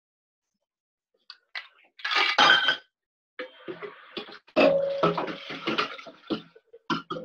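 Clinks and clatter of bar tools and glassware being handled on a kitchen counter, in short irregular bursts with silent gaps between them.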